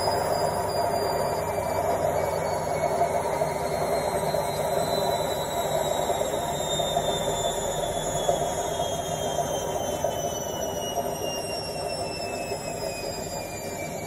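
Indesit front-loading washing machine's drum spinning, with a high motor whine that falls slowly in pitch over a steady rush as the spin winds down, growing gradually quieter.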